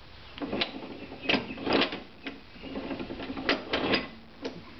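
Metal clicks and knocks from a bench drill press's quill and return-spring cover being worked by hand while the quill spring tension is checked. There are about seven irregular sharp knocks with some rattling between them.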